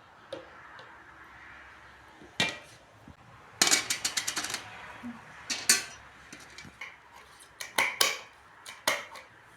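Kitchenware clinking and knocking: sharp separate strikes, with a quick rattle of about ten clicks around four seconds in.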